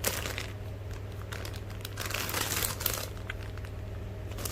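Crinkling and rustling of plastic packaging as squishy toys are handled, in several separate bursts. A steady low hum runs underneath.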